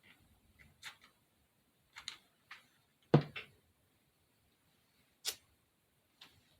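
Scattered small clicks and taps from craft pieces and a glue tool being handled on a tabletop. The loudest is a sharper knock about three seconds in, with another short click about two seconds later.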